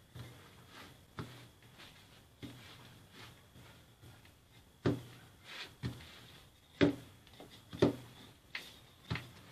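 Wooden rolling pin working dough on a stone countertop: soft rubbing and handling with a run of sharp knocks, the loudest ones in the second half about a second apart.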